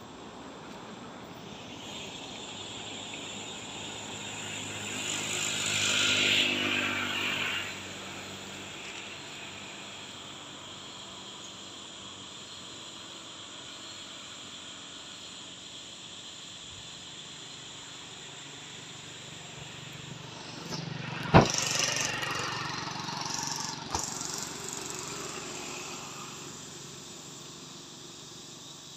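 Outdoor background with a motor vehicle passing on the road, its engine rising and fading about five to seven seconds in. Later, a single sharp click followed by a couple of seconds of rushing noise.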